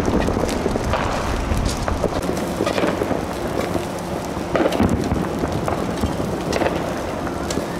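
Dry grass burning, a dense crackling and popping over a steady low rumble.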